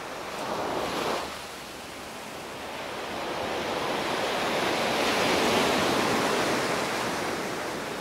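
Small sea waves breaking and washing up a sandy shore: a short surge about a second in, then a bigger wave building from about three seconds in, loudest around five to six seconds, and fading as the foam spreads up the beach.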